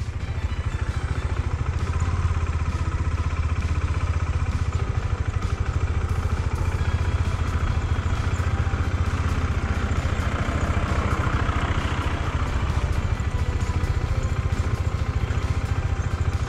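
KTM 390 Adventure's single-cylinder engine running steadily as the bike rolls slowly over a snow-covered road.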